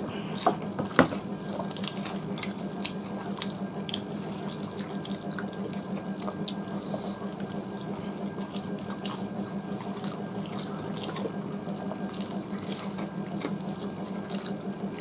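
Eating by hand: fingers mixing rice and curry on steel plates, with wet chewing and mouth clicks. The small clicks are scattered throughout, one louder about a second in, over a steady low hum.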